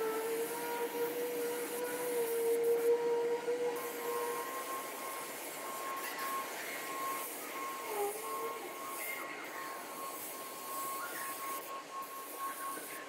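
Compressed-air paint spray gun hissing as it sprays, the hiss breaking off briefly a few times, over a steady high whine.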